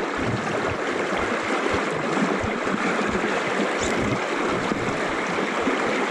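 Steady rush of a fast-flowing river current close at hand.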